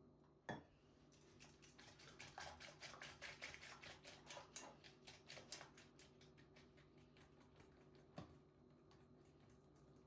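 A kitchen utensil clicking rapidly against a dish, about seven light strikes a second for roughly five seconds, with a single knock just after the start and another near the end.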